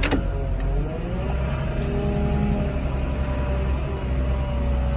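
Loader's diesel engine running with hydraulic whine as the boom works; the pitch dips and then recovers about a second in. A sharp knock comes right at the start. Heard from inside the cab.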